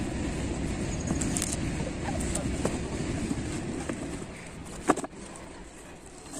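A cardboard box being shaken and handled, with scattered knocks and rustles and a sharper thump about five seconds in, over a steady low rumble that drops away after about four seconds.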